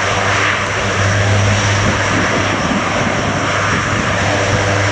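Turboprop engines of a C-130 Hercules running steadily on the ground, a continuous drone with a low hum under a broad hiss.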